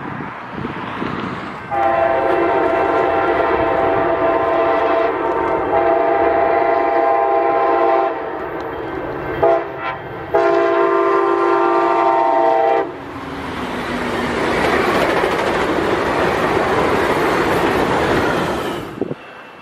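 A train's air horn sounding the grade-crossing pattern: two long blasts, a short one and a final long one. The horn is followed by the rushing noise of a train passing close by, which stops abruptly just before the end.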